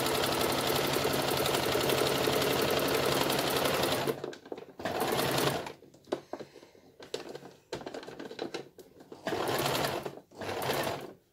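Toyota electric sewing machine stitching at a fast, steady speed for about four seconds, then stopping. It starts again in a few short runs of a second or less, with pauses between.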